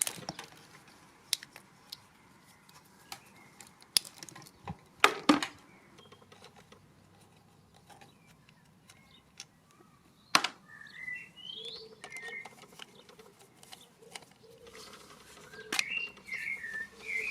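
Scattered sharp knocks and clicks of hard parts being handled, with short wavering high chirps in the second half.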